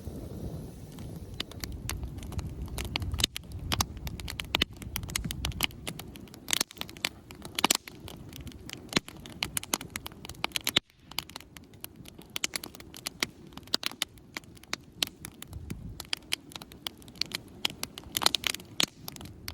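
Wood campfire crackling, with many irregular sharp pops and snaps, over a low rumble that fades after the first few seconds.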